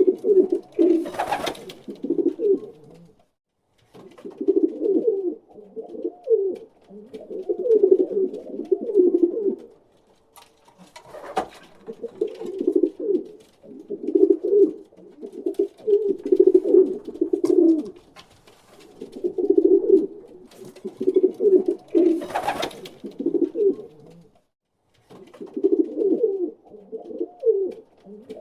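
Pigeons cooing over and over in low, warbling phrases of a second or two, with short gaps between them. Three brief scuffing noises come through, near the start, in the middle and near the end.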